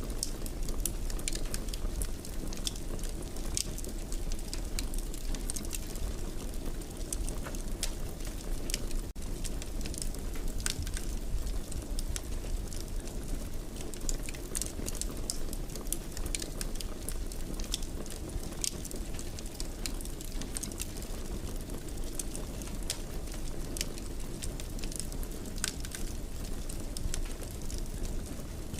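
Wood fire burning in a fireplace: a steady low rumble with frequent sharp crackles and pops scattered irregularly throughout.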